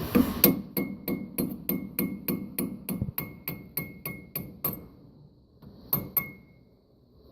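Hammer striking a punch to drive a steel roll pin into a baler knotter's bill hook gear: a steady run of sharp metallic blows, about three a second, each with a short ring. The blows stop for a moment, then two more strikes follow near the end.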